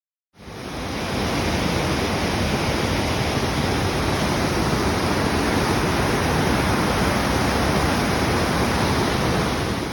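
Waterfall, its water falling and rushing in a steady, dense roar that fades in at the start and stops at the end.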